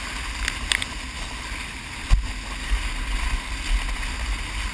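Rushing water and wind as a water ski skims the lake surface at towing speed, with heavy wind buffeting on the microphone and a sharp thump about two seconds in.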